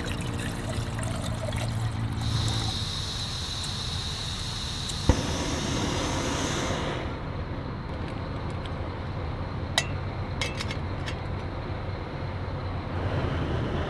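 Water poured from a bottle into a metal camping pot, with a steady hiss. Later come a few sharp clicks and taps as the pot is set on a small canister gas stove.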